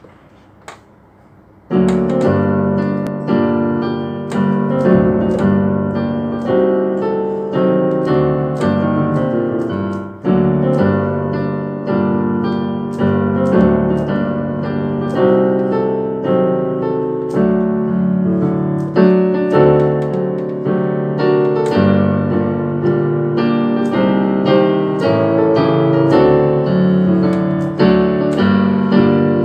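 Solo keyboard music in G minor, beginning about two seconds in: struck notes and chords, each ringing and fading before the next.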